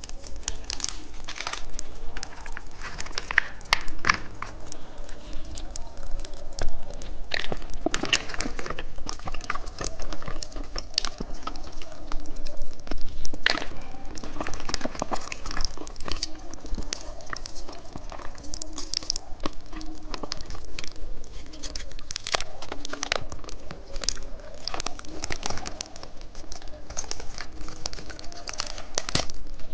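Irregular crinkling and crackling of candy and plastic wrappers being handled, with many small sharp clicks throughout.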